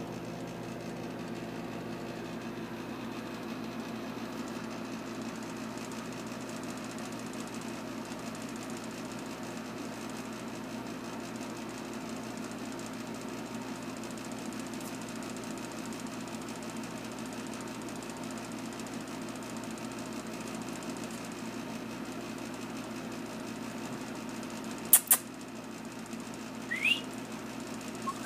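Steady low mechanical hum with several held tones, as from a running motor or appliance. About 25 seconds in there are two sharp clicks, and a short rising squeak follows about two seconds later.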